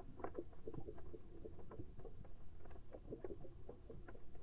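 Soft water ambience: a steady stream of small, irregular bubbling and lapping blips over a low rumble.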